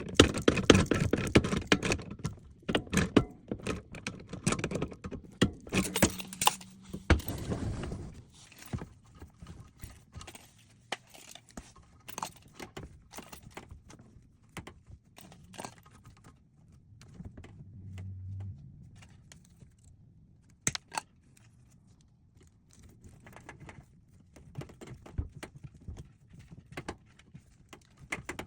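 Irregular knocking and clattering, dense and loud through the first eight seconds, then scattered light taps and clicks.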